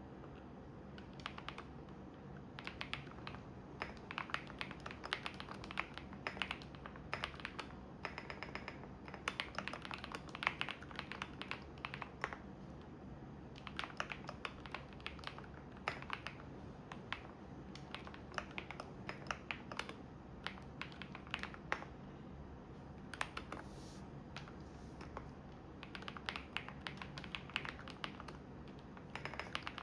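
Computer keyboard typing in bursts of rapid keystrokes with short pauses, over the steady low hum of a washing machine running.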